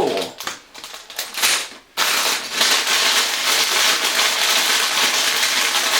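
Plastic bags of LEGO pieces crinkling and rustling as they are handled, with the loose bricks rattling inside. A few light clicks come first, then from about two seconds in the crinkling is dense and continuous.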